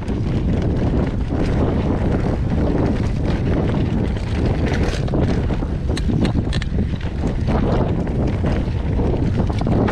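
Wind buffeting the microphone while riding a mountain bike down a trail, a loud steady rumble, with scattered clicks and knocks from the bike rattling over rough ground.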